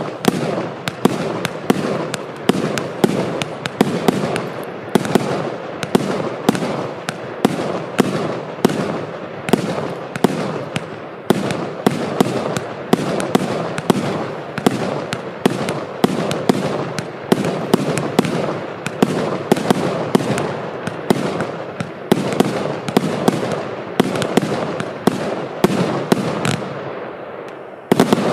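100-shot consumer fireworks cake firing shot after shot, about one and a half bangs a second, each bang with a noisy tail from the bursting stars. The shots thin out near the end.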